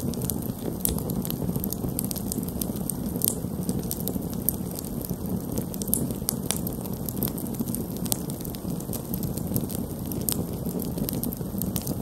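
Open wood campfire burning: a steady low rush of flames with frequent small, sharp crackles and pops scattered through it.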